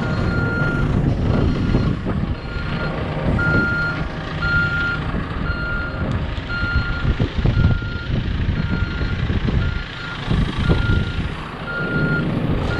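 A vehicle's reversing alarm beeping steadily, about once a second, over the low running of its engine as the machine backs out.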